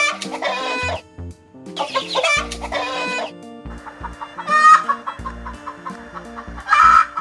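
Hen cackling and clucking in four loud bursts: two long ones in the first half, then two shorter, higher calls, over background music with a steady beat.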